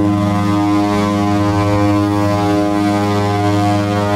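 Cruise ship's horn sounding one long, deep, steady blast.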